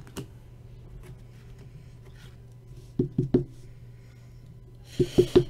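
Two groups of three quick sharp knocks, about two seconds apart, from a hard plastic card holder tapped on the tabletop while cards are handled; the second group comes with a brief rustling hiss. A low steady hum sits underneath.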